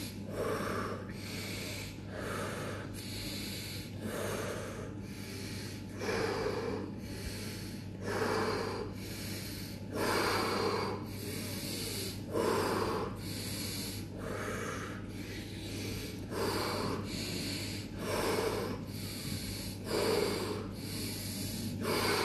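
A man's deep, forceful breathing in a steady rhythm, each breath drawn in and blown out, about one breath every two seconds: a pranayama round of 35 breaths.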